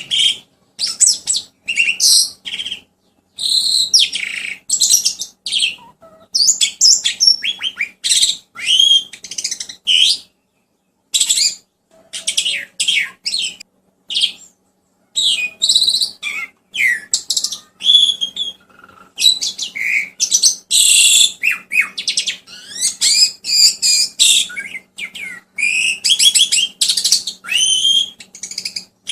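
Songbird masteran song: a rapid, high chattering of chirps and whistled glides, delivered in bursts with short pauses between them.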